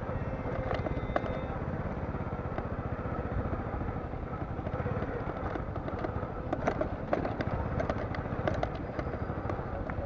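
Steady outdoor traffic noise with motorcycle engines running in the distance. A scatter of short clicks and knocks comes between about six and nine seconds in.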